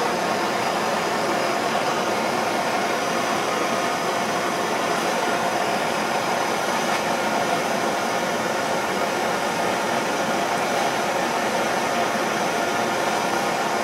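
Gas torch burning with a steady hiss, its blue flame heating a fluxed filler piece held in locking pliers for silver soldering.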